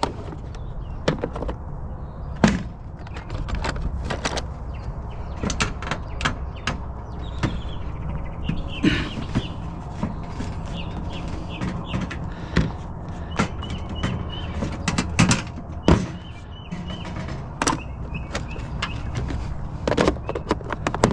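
Irregular clicks, taps and metal knocks of hand tools working on a metal light ballast as it is taken apart, with a few louder knocks now and then.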